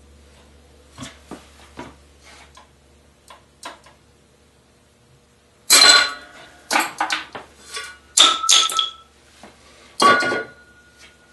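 A spring-tempered 5160 carbon-steel blade, clamped in a vise and bent with a steel pipe, snaps about six seconds in with a sudden loud crack after a few faint creaking clicks. Several sharp metal clanks follow as the pipe and the broken piece strike the bench and vise.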